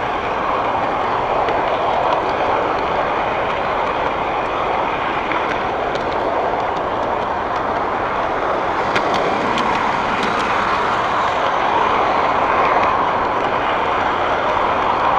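Model train running along its track, heard from the camera riding on it: a steady rumble and whir of wheels and motor, with a few light clicks around the middle.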